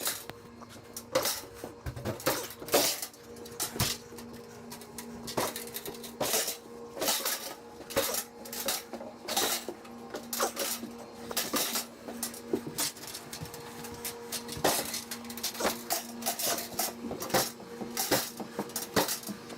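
Sheet-metal HVAC air handler being carried down stairs, its metal panels clinking and knocking irregularly, several times a second, with a faint steady hum underneath.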